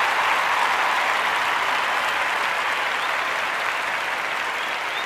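Applause from a large crowd: steady, even clapping that slowly fades.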